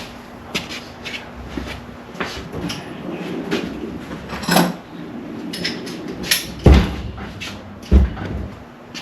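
Tools and metal parts being handled: scattered clicks and clinks, with two heavier thumps about a second apart near the end.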